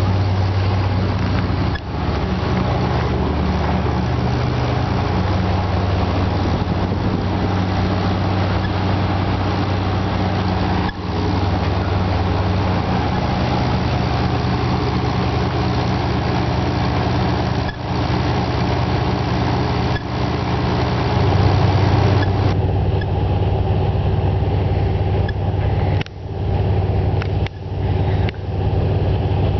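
Car ferry's engines droning steadily with a low hum, heard from the open deck, with a few brief drops in level near the end.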